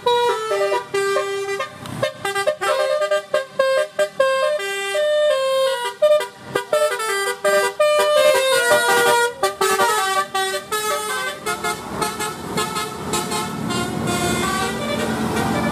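Bus telolet horn playing a quick, tune-like run of several tones. In the last few seconds the horn gives way to a steady rumble of the bus going past.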